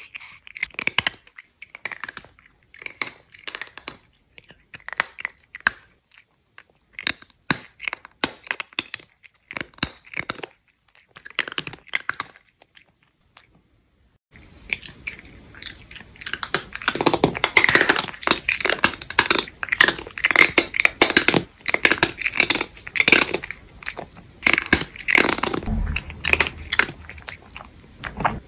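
A cat chewing crunchy dry food close to the microphone: groups of sharp crunches with short pauses between them. After a brief silence about halfway through, the crunching comes back louder and denser.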